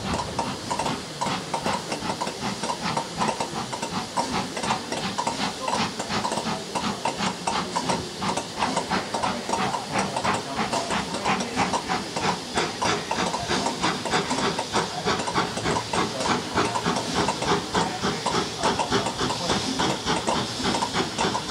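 Steam locomotive working hard under load, its chimney giving a fast, even run of sharp exhaust beats over a steady hiss of steam.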